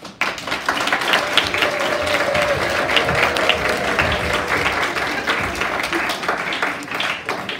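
Audience applause: many people clapping together, starting suddenly and running steadily.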